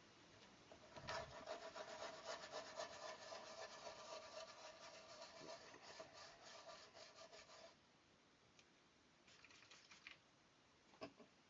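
Faint, rapid rubbing strokes of something being scrubbed clean by hand. They start about a second in, stop near eight seconds, and come back as a few brief rubs near the end.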